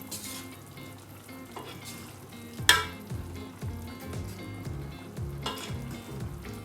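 Soup being stirred in a pot, with a steady bubbling sizzle. The stirring utensil knocks against the pot three times, loudest about two and a half seconds in.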